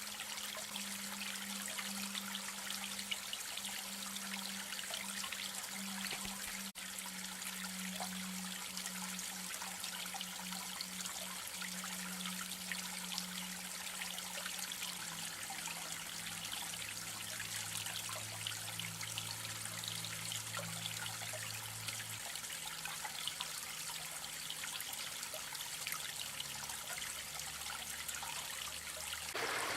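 Creek water trickling and splashing steadily over rocks, an even hiss of running water.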